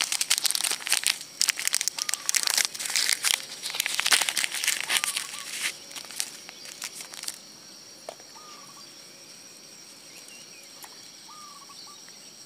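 Plastic fishing-hook packet crinkling and rustling in the hands as a hook is taken out, stopping about seven seconds in. Afterwards a steady high insect drone remains, and a bird's short call repeats every few seconds.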